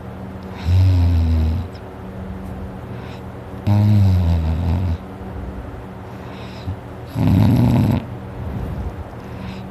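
A person snoring loudly in deep sleep: three heavy snores about three seconds apart, each lasting about a second.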